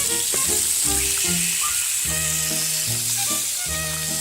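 Water running from a tap in a steady, even hiss, over background music.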